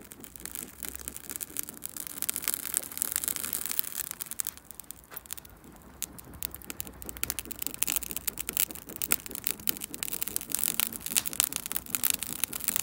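Sauce-glazed steak sizzling on a charcoal grill grate, with dense crackling and popping from the glowing coals beneath; the crackle eases off briefly about halfway through, then picks up again.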